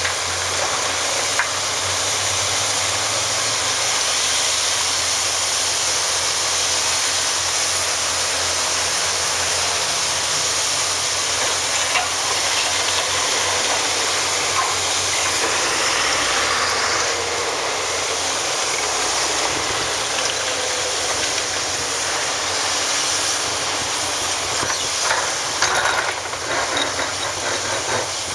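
Hitachi ZX870-3 excavator's diesel engine and hydraulics running steadily under load as it works demolition rubble with its bucket, with a few sharp knocks and clatter of debris near the end.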